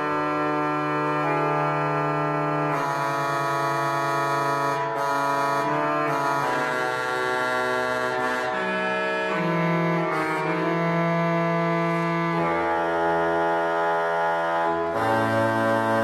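Historic Spanish pipe organ playing an improvised medio registro de bajo: a solo line in the bass half of the divided keyboard against held chords in the treble. The notes are sustained and change every second or few seconds.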